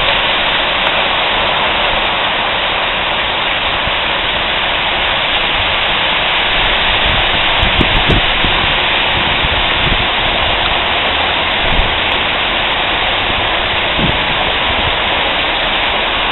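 Heavy rain pouring down on trees and the surroundings, a loud, steady hiss. A few brief low thumps come through about 8, 12 and 14 seconds in.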